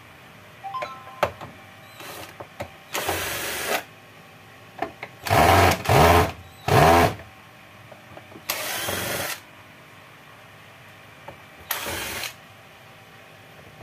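Power screwdriver backing out the screws of an LED TV's plastic back cover: about six short runs of the motor, some with a whine that rises and falls as it spins up and slows, with a few light clicks of handling and screws before the first run.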